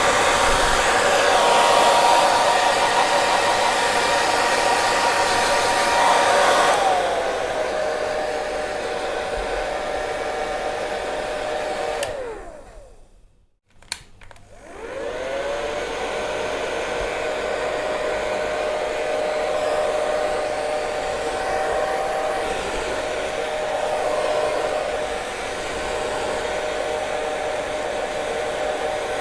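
Hair dryer blowing steadily, with a motor tone over the rush of air. About seven seconds in the sound drops to a lower, quieter setting. Around twelve seconds it winds down almost to silence, gives a click, then spins back up and runs steadily again.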